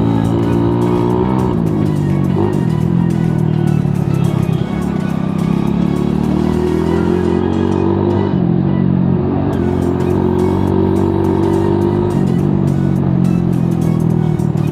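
Hero Splendor motorcycle's single-cylinder engine running through a modified exhaust while riding. The revs climb and then drop several times, as at gear changes.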